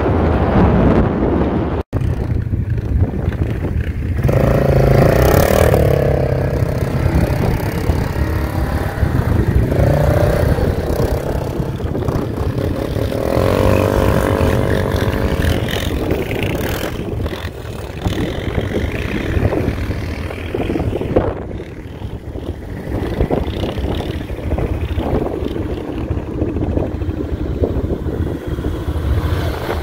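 ATV engine running under way, its pitch rising and falling as the throttle is worked, over a steady rush of noise.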